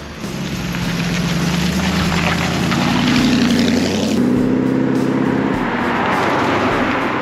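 Car engines, with a sudden change about four seconds in: first an engine note climbing steadily in pitch as it accelerates, then a second car driving past, its note dropping away about a second later into tyre and road noise.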